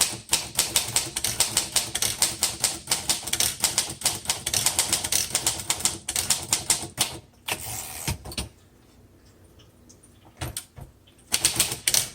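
1936 Royal Model O manual typewriter being typed on at a quick, steady pace, its keys and type bars clacking in rapid succession. About eight seconds in there is a short rasping sound, then a pause of a couple of seconds with a stray keystroke before the fast typing starts again near the end.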